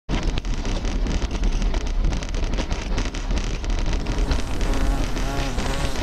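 Insect-like buzzing that wavers up and down in pitch, growing clearer over the last second or so, above a steady low rumble and a dense crackle of ticks.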